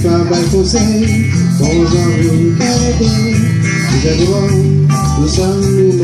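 Live music: an electric guitar played over a bass line, with a man singing into a microphone.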